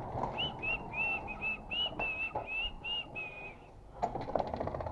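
A person whistling a short run of about a dozen notes, then light clicking and rattling near the end.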